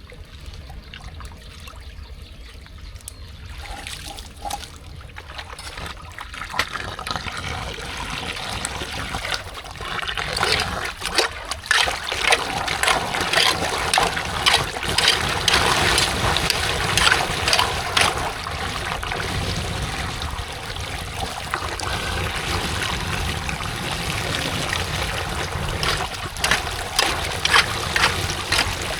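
Floodwater trickling and splashing, quiet at first, then growing louder about ten seconds in with many small splashes.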